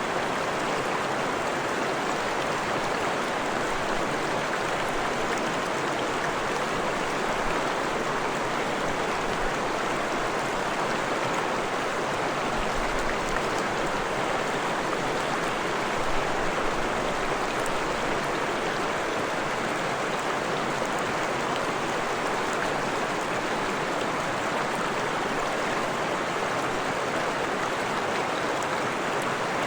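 Stream water running steadily, an even rushing and splashing with no change in level.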